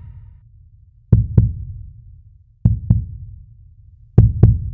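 Slow heartbeat sound effect: three deep double thumps (lub-dub), about one and a half seconds apart, over a low rumble.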